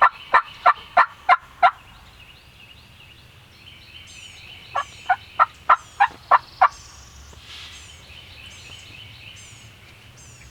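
Wild turkey yelping: a run of about six evenly spaced yelps, then, about five seconds in, another run of about seven, each run at roughly three notes a second. Small birds chirp faintly in the background.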